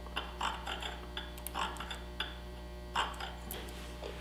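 Light metal-on-metal clicks and scrapes, about a dozen, from hand work on the damaged threads at the end of an ATV spindle, over a steady low hum.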